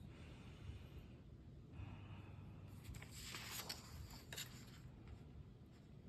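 Faint rustle of paper being handled as a book page is moved, loudest a little past three seconds in, with a light tap about four seconds in.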